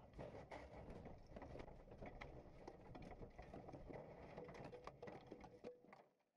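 Muffled in-car sound of a Citroën DS3 R3T rally car in deep snow: a low rumble with many small knocks and clatters. It cuts off suddenly near the end.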